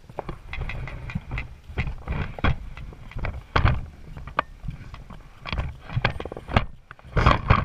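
Lego monster truck driving across a wooden floor, its plastic bricks and wheels clattering in a fast, irregular run of knocks and rattles over a low rumble.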